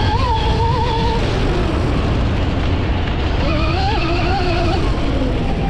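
Electric dirt bike's QS138 brushless motor and built-in gear reduction whining, its pitch rising and falling with the throttle, over a steady low rumble. The whine dies away about a second in and comes back about three and a half seconds in.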